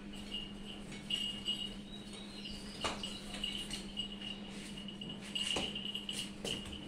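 A small bell on a goat tinkling faintly and unevenly as the goat is led down tiled stairs, with a few light knocks of hooves or steps. A steady low hum runs underneath.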